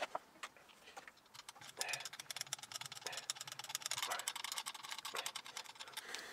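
Faint, rapid run of small clicks and ticks, many a second, from about a second and a half in, as hand tools are handled at a milling machine. A faint low hum sits under it for a couple of seconds.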